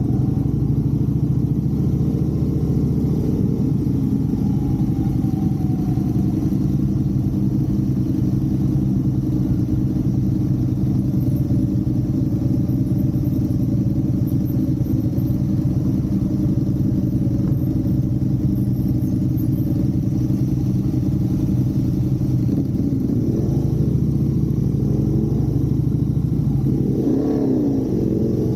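Motorcycle engine running steadily while riding, its pitch rising and falling near the end as the engine speed changes.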